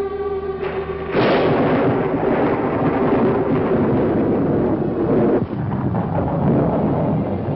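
Old film soundtrack: sustained music notes are cut off about a second in by a sudden loud thunder crash, which goes on as a rolling storm rumble with a brief dip near the end.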